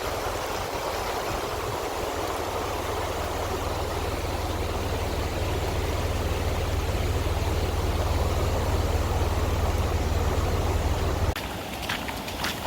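Floodwater rushing in a swollen creek: a steady rush of water over a deep low rumble. It cuts off abruptly near the end, followed by a few sharp clicks.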